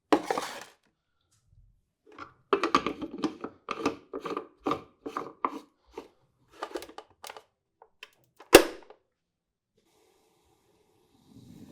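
Handling of a Szarvasi coffee maker being prepared: a run of knocks, taps and scrapes, and one sharp, loud click about eight and a half seconds in. A faint steady hum starts near the end.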